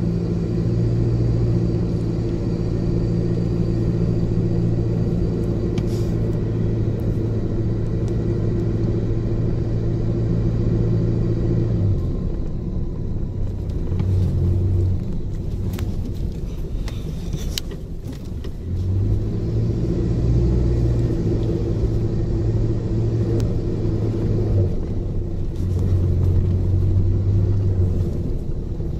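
A 4WD's engine running as it drives along a sandy desert track, a steady low drone heard from inside the cabin. The drone eases off for several seconds past the middle, then returns.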